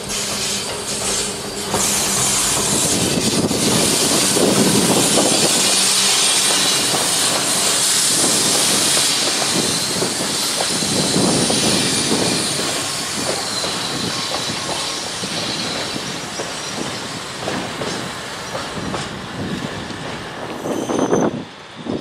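Freight train passing close by: an electric locomotive's steady hum at first, then loaded container flat wagons rolling past. The wheels give a loud high hiss, and groups of clicks recur every few seconds as the bogies cross rail joints.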